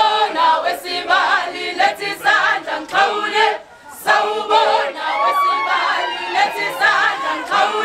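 A group of young women singing and chanting a Zulu song together while they dance, with sharp hits between the sung phrases and a brief drop in the singing about three and a half seconds in.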